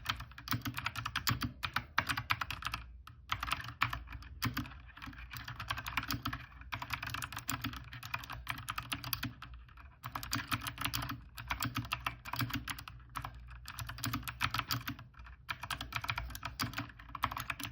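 Fast typing on a mechanical keyboard with clicky blue switches, a dense run of sharp key clicks broken by a few short pauses.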